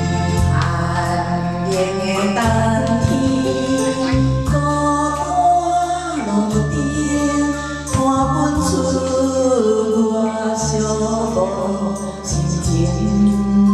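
A woman singing a song into a microphone, amplified, over an electronic organ accompaniment whose held bass notes change every couple of seconds.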